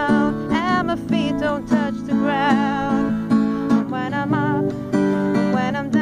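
Acoustic ballad on a strummed acoustic guitar, with a woman singing over it, her voice wavering in vibrato.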